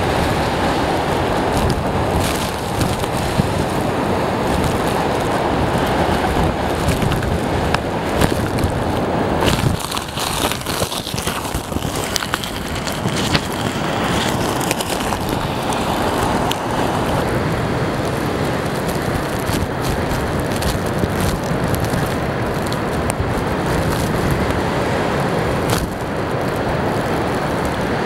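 Storm wind blowing hard across the microphone, mixed with lake waves crashing against a concrete seawall and spray blowing over it: a steady loud rush that swells now and then.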